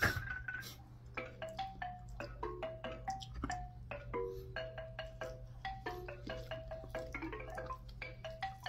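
Background music: a light tune of short, chiming mallet-percussion notes, several a second, over a steady low hum.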